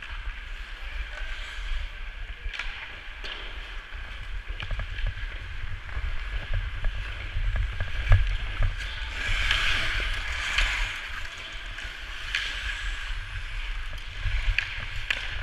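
Ice skate blades carving and scraping on a hockey rink, with a louder scraping hiss about two-thirds of the way through. Wind buffets the microphone of a camera worn by a moving skater, and sharp clicks of sticks and puck are scattered throughout.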